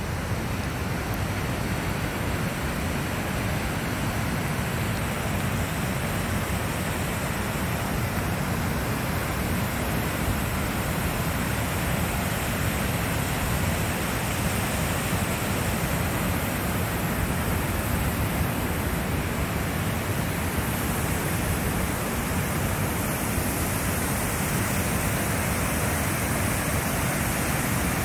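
Glacier-fed waterfall cascading down a rock face: a steady, unbroken rush of water.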